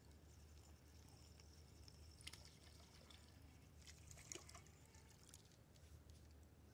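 Near silence, with faint water sounds: small splashes and drips about two seconds in and again around four seconds in, as a hooked crappie is reeled to the surface and lifted out.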